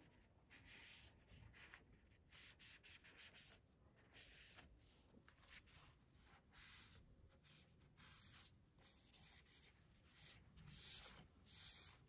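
Faint, soft swishing of a tissue wiped along moth orchid leaves to clean them, in many short strokes at an uneven pace with brief pauses between.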